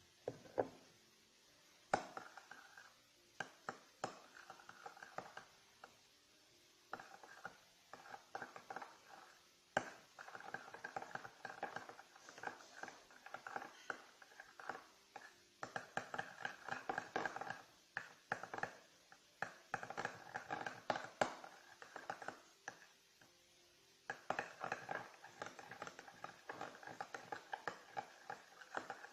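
Glue and shaving foam being stirred together with a utensil in a bowl for fluffy slime: bursts of crackly, squelching sound with scattered clicks against the bowl, broken by short pauses.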